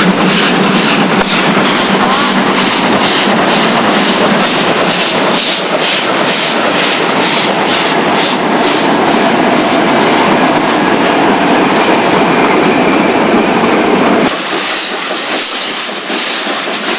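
Two Italian-built Mallet steam locomotives working a train up the grade, their exhaust chuffing in a rapid, even beat. Near the end the sound changes abruptly as the locomotives pass close by.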